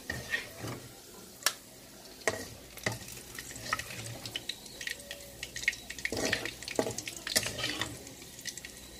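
Metal spatula scraping and clinking against a wok and a metal strainer as fried shallots and garlic are scooped out of hot oil, in irregular scrapes and clinks that grow busier in the second half, over a faint sizzle of oil.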